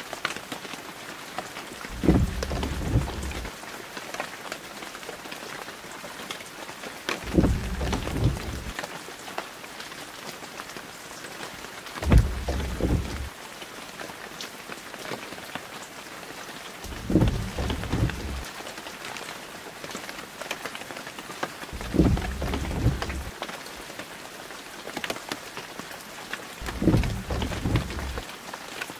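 Steady hiss of heavy rain. A low rumble of about a second and a half cuts in six times, evenly spaced about every five seconds.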